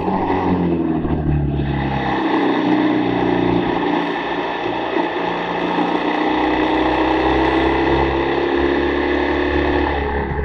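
BMW GS boxer-twin motorcycle engine running hard at track speed, over a rush of wind. Its pitch falls over the first couple of seconds, then climbs and holds.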